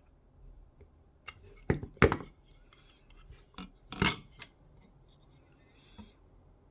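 Rounded metal pins being pressed by hand into a 3D-printed plastic dock part: a few sharp knocks and scraping clicks, the loudest about two seconds and four seconds in.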